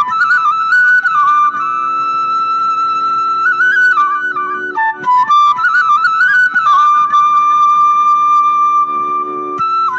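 Bamboo flute (pullanguzhal) playing a slow devotional melody, long held notes broken by quick ornamented turns, over a steady low drone.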